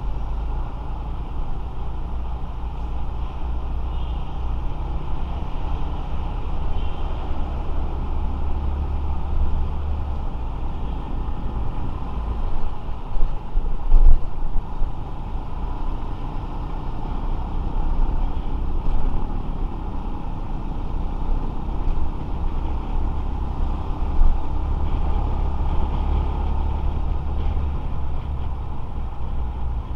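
Motorcycle riding in traffic: steady engine and road noise under a heavy low rumble, with a sharp knock about halfway through.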